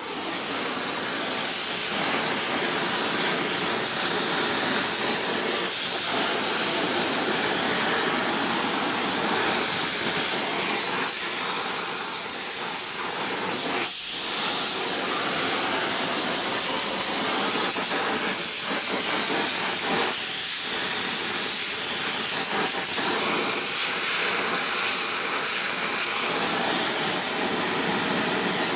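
Gas ring burner hissing steadily as it heats a large bronze ring up to soldering temperature.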